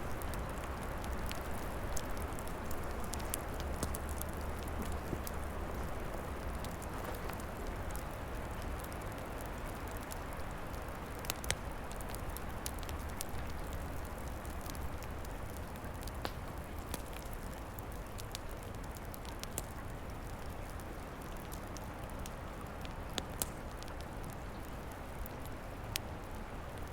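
Wood fire crackling, with sharp pops scattered through it, over a steady rush of wind in the trees.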